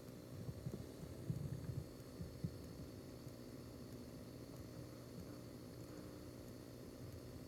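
Low, steady background hum, with a few soft, dull bumps between about half a second and two and a half seconds in.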